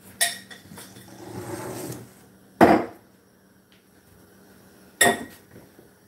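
Three sharp knocks of kitchen items being handled and set down, the loudest about two and a half seconds in, with soft scuffling between the first two.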